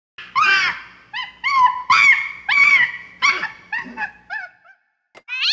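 A run of about ten short, high yelping animal calls, each rising and falling in pitch, growing fainter toward the end, followed by one more high yelp near the end: a cartoon animal sound effect.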